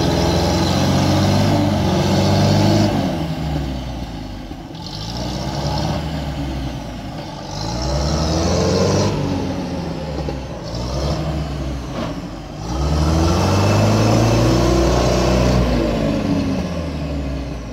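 UAZ-469 engine revving hard in repeated surges, about five rises and falls, as its wheels spin in deep mud while it is pulled on a tow line. The engine eases off near the end.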